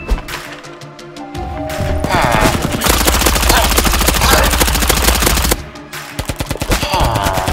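X-Shot Hyper Gel blaster firing on full auto: a fast, even stream of shots that starts about two seconds in, stops briefly near the end and starts again. Music plays underneath at the start.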